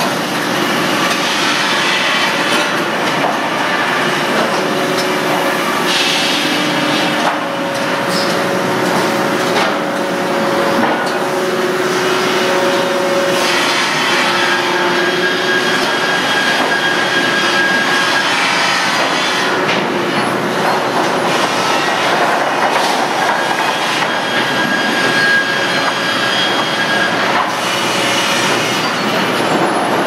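Sawmill lumber-handling machinery running: chain conveyors and rollers carrying boards, a loud steady clatter of metal and wood. Short squealing tones rise out of it now and then.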